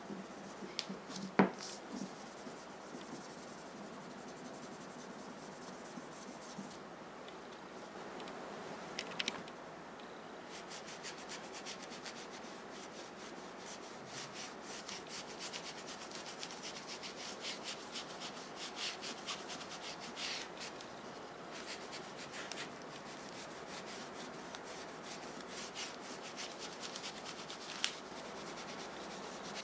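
Cloth rubbing and wiping along a hammered stainless steel kitchen knife blade: a steady scratchy rubbing, thick with fine ticks through most of it. A sharp click about a second and a half in, and a smaller one near the end.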